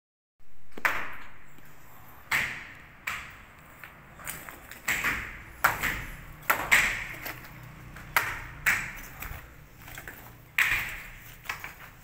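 Footsteps on broken brick rubble and bare concrete, at an uneven walking pace. Each step is a sharp knock with a short ringing echo off the bare walls.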